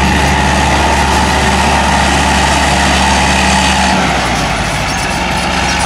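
Caterpillar 951 crawler loader's diesel engine running steadily as the machine moves over dirt; the engine note drops a little about four seconds in.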